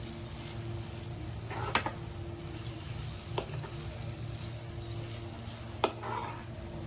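A spoon stirring thick, nearly dry broken-wheat lapsi in a pan on the stove, with a light sizzle and a steady low hum; the spoon knocks sharply against the pan three times.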